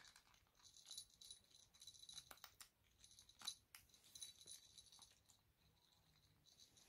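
Small bell on a kitten's collar jingling faintly in short bursts about once a second as the kitten eats, with light clicks and crunches of dry kibble against a plastic dish.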